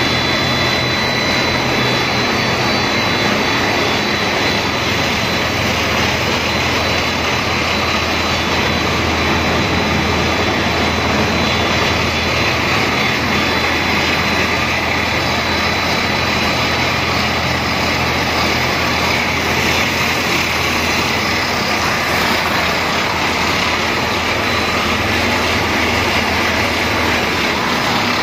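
Snack-food extrusion line running: a steady, loud machine drone of motors and fans, with a low hum under it and a thin high whine.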